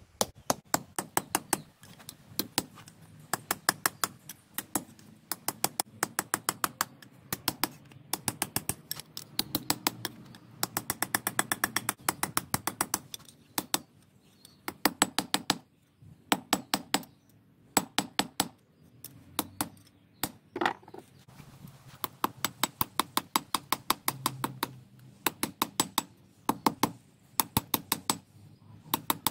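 Hand hammer striking a red-hot bar on an anvil: quick runs of sharp metal-on-metal blows, several a second, broken by short pauses.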